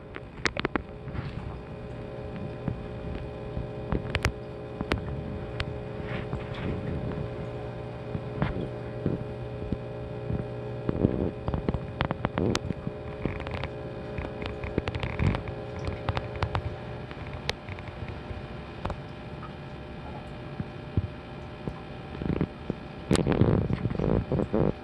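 Steady low hum with a few held tones, some of which stop about 17 seconds in, broken by scattered sharp clicks and knocks. A louder stretch of knocking and rumble comes near the end.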